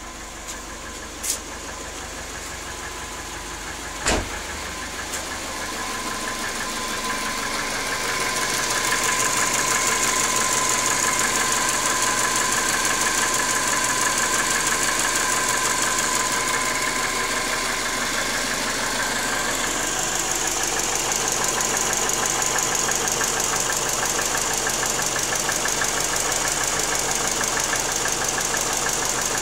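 Cold-running turbocharged Subaru flat-four engine of a 1997 Forester with a rapid, steady knock from the fourth cylinder: piston slap that shows while the engine is not yet warmed up. The sound builds over the first several seconds and then holds steady, with one sharp knock about four seconds in.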